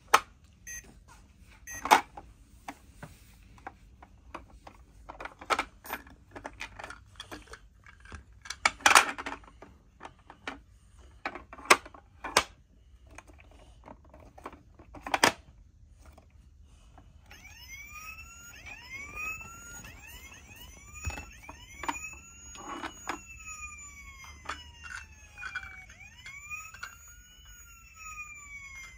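Plastic toy being handled with scattered sharp clicks and knocks, then, a little past halfway, the Happyland Lights & Sounds toy ambulance's electronic siren sounding, a wail of repeated rising and falling sweeps.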